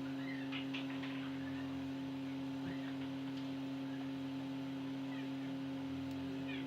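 Steady electrical hum made of several fixed tones, holding level without rising or falling.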